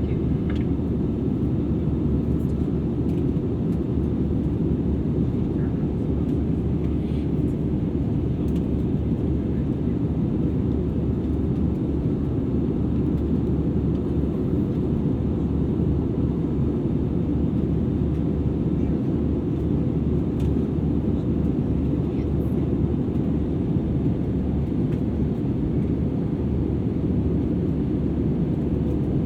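Steady cabin noise of an Airbus A320-200ceo in cruise, heard from a rear seat: a low, even rush of airflow and engine noise with a faint steady hum.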